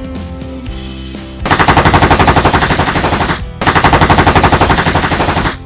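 Toy AK-47 rifle's rapid-fire machine-gun sound, in two bursts of about two seconds each at roughly ten shots a second, with a short break between them, over background music.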